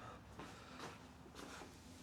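Near silence: room tone with a low hum and three faint, brief rustles.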